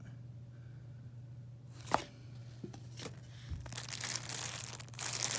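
Crinkly plastic packaging of a Mylar rescue blanket being handled, crinkling from about three and a half seconds in and louder near the end. A single sharp click comes a little before the crinkling starts.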